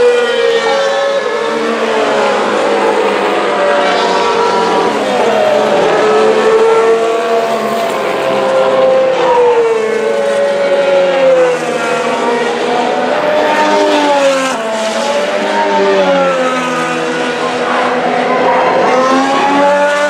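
2017 Formula 1 cars' turbocharged V6 hybrid engines screaming past one after another at racing speed. Each engine note sweeps up and then falls away as the car passes, with the next car's note overlapping the last.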